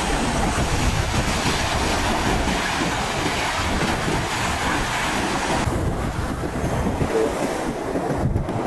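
Wind buffeting the microphone over the steady rush of sea waves at the shore; the high hiss drops away about six seconds in.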